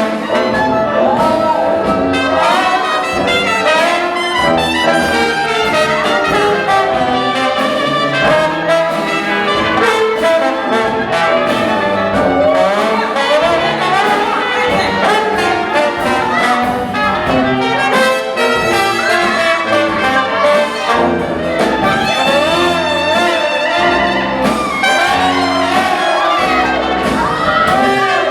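Big-band jazz instrumental break led by brass, trumpets and trombones, with notes that bend and waver.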